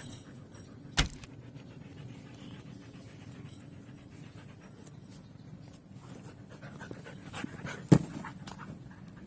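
Siberian husky panting steadily, with two sharp thumps, one about a second in and a louder one near the end.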